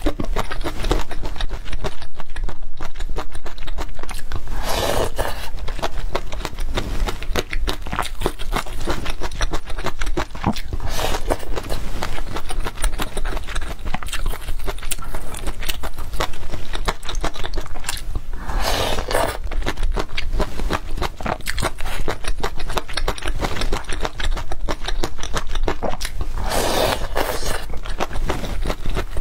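Close-miked eating of hot-and-sour noodle soup with yuba and sour bamboo shoots: crunchy chewing with many small wet clicks, broken by four long slurps spaced several seconds apart.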